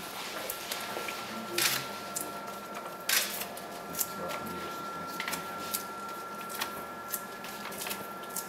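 Paper rustling and light clicks as ECG electrode pads are peeled and pressed on, with two louder rustles in the first few seconds. A faint steady high-pitched tone sounds underneath.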